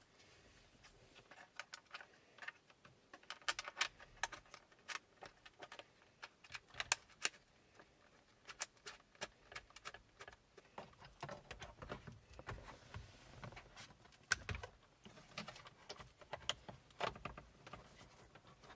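Faint, irregular clicks and rattles of plastic wiring connectors and cables being plugged into the back of an aftermarket Android touchscreen head unit and handled, with a few sharper snaps along the way.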